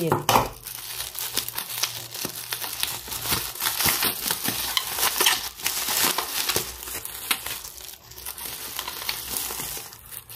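Plastic bubble wrap crinkling and rustling as hands unwrap it, a dense run of small crackles that eases off over the last couple of seconds.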